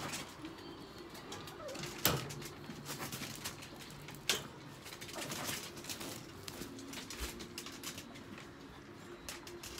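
Plastic water bottle being hooked onto a wire dog crate: a sharp clack about two seconds in and another just after four seconds, with small rattles and clicks of the crate wire.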